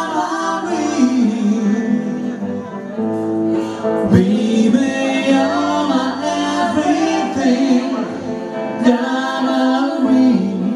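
Live rock band: a man and a woman singing together over electric guitar and drums.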